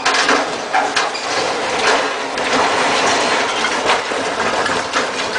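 Crane truck toppling over as the boat it was lifting crashes into the water: a continuous loud rushing, crashing noise with several sharp knocks of metal and hull hitting.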